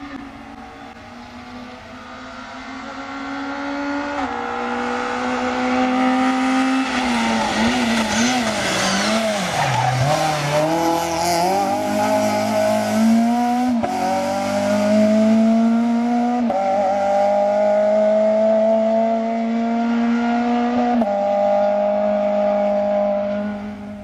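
Rally car on a closed stage: the engine comes up the road, its note wavers and dips as it slows through a hairpin, then it accelerates away hard, climbing through the gears with several clear upshifts before fading near the end.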